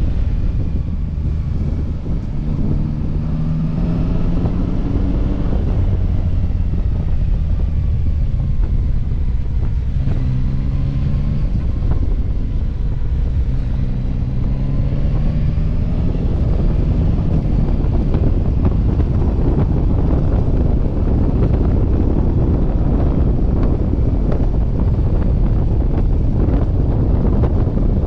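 Yamaha Tracer 9 GT's three-cylinder engine rising in pitch several times as the bike accelerates, under heavy wind rush on the microphone that grows louder in the second half.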